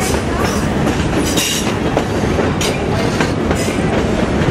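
Passenger train car rolling along the track, heard from aboard: a steady rumble from the wheels with irregular sharp clicks and clacks.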